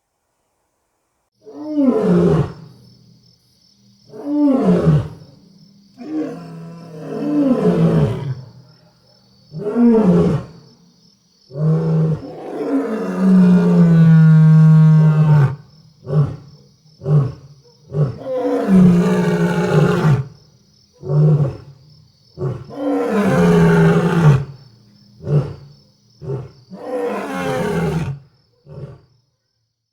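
A lion roaring: a series of deep roars and grunts, each falling in pitch, with two long drawn-out roars partway through among shorter ones.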